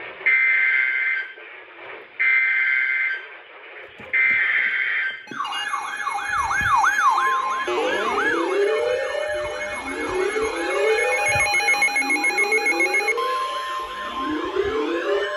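Emergency Alert System data bursts: three short bursts of shrill two-tone digital warbling, about a second each, with brief pauses. About five seconds in, several electronic sirens start sweeping up and down at once, overlapping. Near the end a steady single-pitch alert tone joins them.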